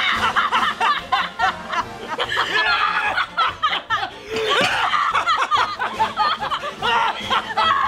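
A man and two women laughing hard together, starting all at once, over background music.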